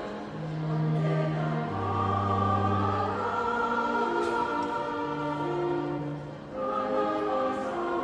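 A choir singing in harmony, with held chords over a low bass part, the notes changing every second or two.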